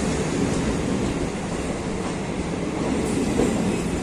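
DEMU passenger train rolling slowly along the platform as it arrives, an even rumble of wheels on the rails and coaches passing close by.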